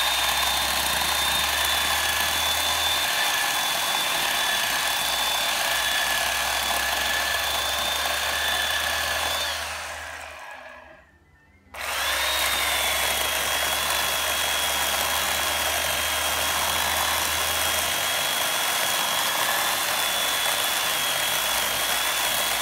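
Small Poulan electric chainsaw cutting into a dead oak trunk with a steady motor whine. It runs for about ten seconds, stops briefly, then starts again and runs on.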